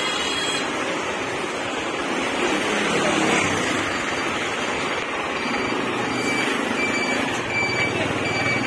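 Steady street traffic noise from buses and auto-rickshaws, with faint background voices and a few short, high beeps in the last few seconds.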